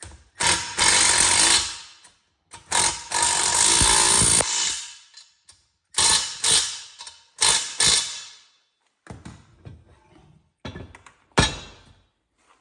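Power tool running down and tightening the two 15 mm nuts on the plow lift bracket, in two long bursts followed by several short ones.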